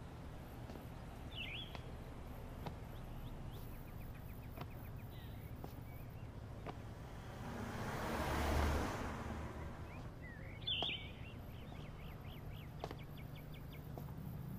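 Outdoor road ambience with a car driving past about eight seconds in, its noise swelling and then fading away, and a couple of short bird chirps, one early and one just after the car.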